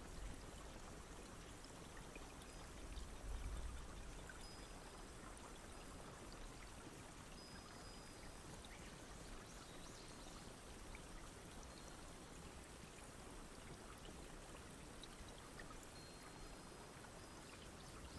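Steady rain falling, an even hiss with faint scattered drops, and a brief low rumble about three seconds in.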